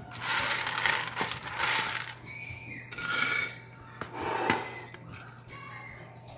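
Shelled peanut halves rattling and scraping across an aluminium baking pan as a hand sweeps through them, in four short rustling bursts with small clicks of nuts against the metal.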